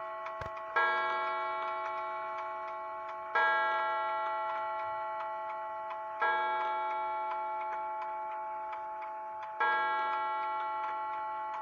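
1920 Ansonia No. 48 Cabinet mantel clock striking on its gong: four slow, single strokes about three seconds apart, each ringing out and slowly fading before the next.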